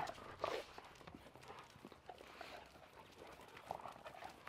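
Several dogs moving about and play-wrestling on concrete: faint scattered tapping and scuffling of claws and paws.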